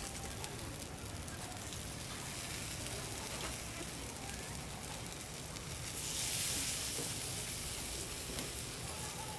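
Marinated pig ear and pork pieces sizzling on a wire grill over a charcoal stove, a steady hiss that grows louder about six seconds in.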